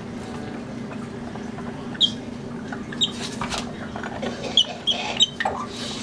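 Lilac-crowned Amazon parrot giving a few short, sharp high squeaks, starting about two seconds in, over a steady low hum.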